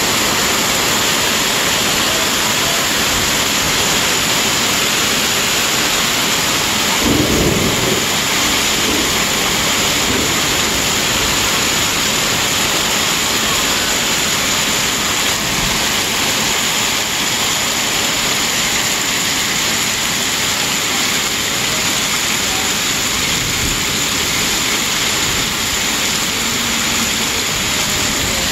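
Hailstorm: hail and rain pelting the ground, street and rooftops in a dense, steady hiss. A brief low rumble comes about seven seconds in.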